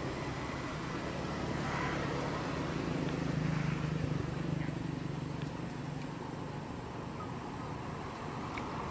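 A steady low motor hum over an even wash of outdoor noise, swelling slightly a few seconds in.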